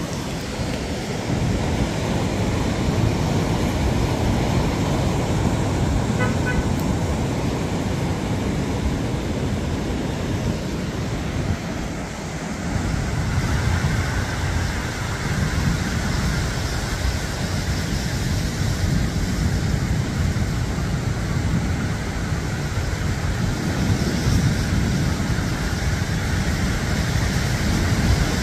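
Steady beach ambience: surf and wind with road traffic noise mixed in. A brief high tone sounds about six seconds in.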